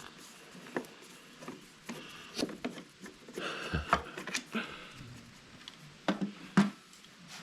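Scattered light clicks, taps and rubbing of hand work on a Vespa scooter's headset: screws being taken out and the cover being handled, with a short spell of rubbing about halfway through.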